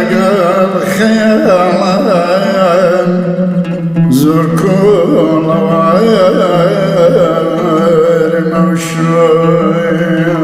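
Kurdish maqam song: a man sings long, ornamented, wavering melodic lines over oud accompaniment and sustained low notes.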